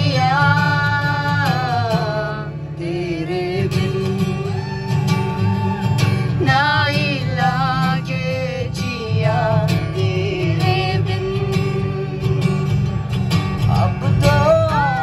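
A man singing a song while playing an acoustic guitar, amplified live through stage loudspeakers.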